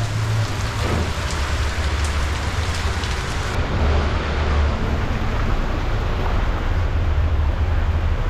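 Heavy rain falling in a steady hiss, with a constant low rumble underneath.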